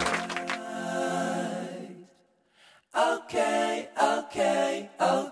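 Music with singing voices: a held chord that fades out about two seconds in, a short pause, then a string of short separate notes.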